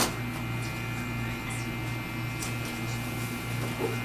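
Steady low electrical hum with faint high, even tones above it, unchanging throughout; a faint knock near the end.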